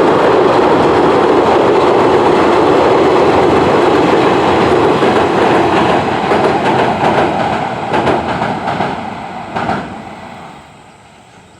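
Freight train wagons rolling across a steel railway bridge: a loud steady rumble with wheels clacking rhythmically over the rail joints. The last cars pass near the end and the sound dies away quickly.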